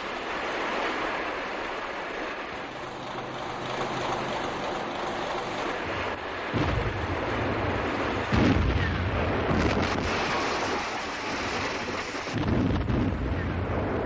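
A steady rush of rough sea and wind. From about halfway there are three heavy, rumbling booms of explosions.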